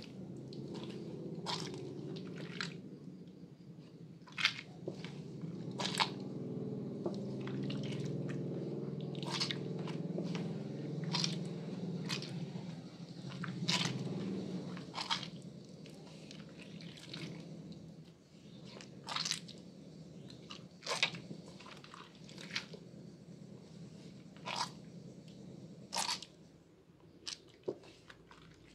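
Soaked Purbasari red antibacterial bar soap, gone soft and mushy, being squeezed and mashed between wet hands in sudsy water: wet squelching with many sharp crackling pops. The dense low squelching thins out about halfway through, leaving mostly scattered crackles.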